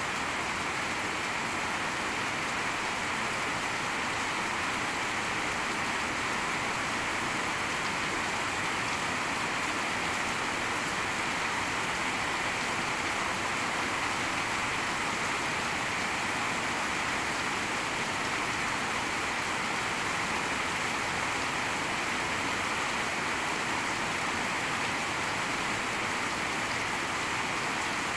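Heavy rain falling steadily, an even hiss that does not let up or change.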